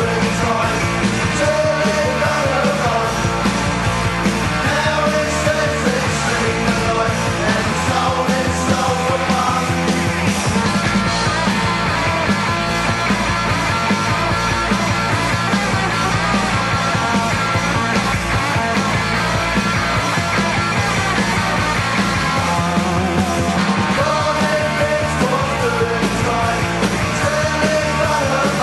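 A punk rock song played loudly by a full band.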